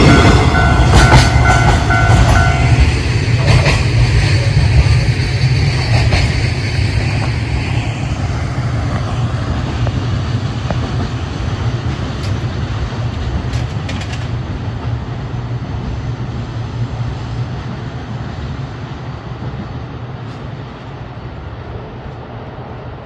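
Freight train hauled by an EF210 electric locomotive rolling away past a level crossing, its low rumble and wheel clatter fading steadily. The crossing's warning bell rings at the start and stops about three seconds in, as the train clears the crossing.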